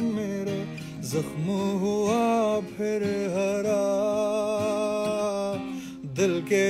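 A man singing long, sliding held notes without clear words over a strummed acoustic guitar.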